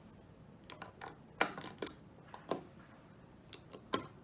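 Plastic LEGO bricks clicking and clacking as they are handled and pressed together, a string of irregular sharp clicks with the loudest about a second and a half in and again near the end.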